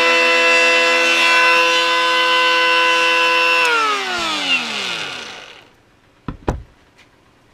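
Parkside PHA 12 12 V brushless cordless planer running free with no wood under it: a steady high whine that, about three and a half seconds in, winds down with a falling pitch as the trigger is let go. Two sharp knocks follow near the end.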